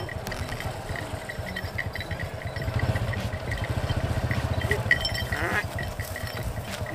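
Small motorcycle engine running steadily as a makeshift water pump drive, with a rhythmic low pulsing that grows louder about three seconds in and eases back a couple of seconds later. A brief rising animal call sounds about five seconds in.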